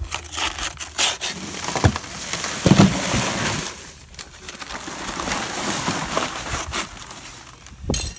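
A paper bag of dry Quikrete concrete mix being cut and emptied into a wheelbarrow: paper rustling, the powdery mix hissing out with a couple of heavy thuds as hardened lumps drop in. Later the lumps are crushed and scraped with a hand tool, with sharp knocks near the end.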